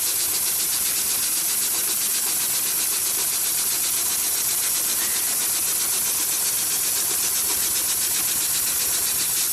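Industrial triple-feed sewing machine running at a steady speed, a rapid, even stitching whir with a hissy top.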